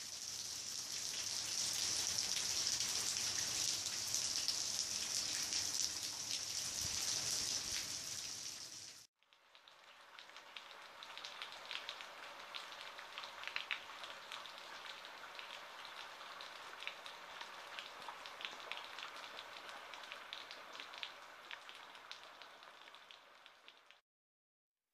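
Rain falling in a steady, dense hiss that cuts off abruptly about nine seconds in. It resumes as lighter rain with many separate drops ticking, then cuts off suddenly near the end.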